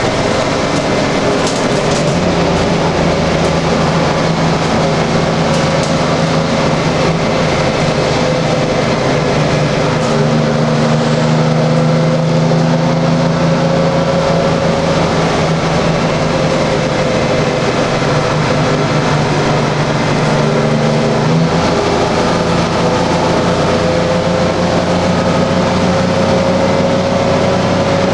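GM Classic city bus heard from inside its passenger cabin while under way: a steady diesel engine drone with a higher whine that slowly rises and falls. The engine note changes about three quarters of the way through.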